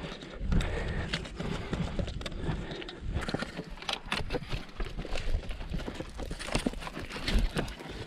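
A trail runner's footsteps on rocky ground, with trekking-pole tips striking stone in quick, irregular clicks and knocks.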